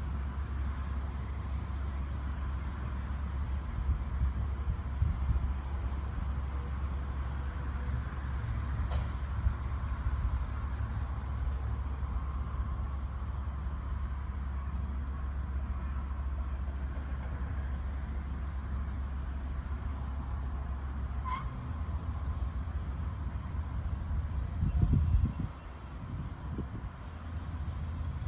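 Insects chirping in a rapid, steady pulsing rhythm, over a constant low rumble like wind on the microphone, with a few thumps near the end.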